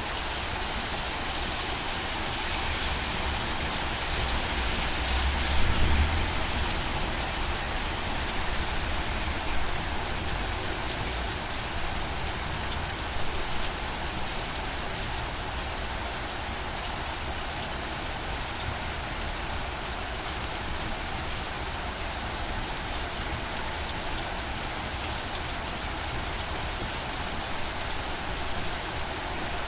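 Steady rain falling, an even hiss with scattered drops on a surface, and a brief low rumble swelling about six seconds in.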